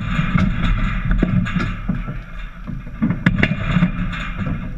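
Dek hockey play: sharp clacks of sticks hitting the ball, each other and the plastic tile court, several times, over a steady low rumble of wind on the microphone.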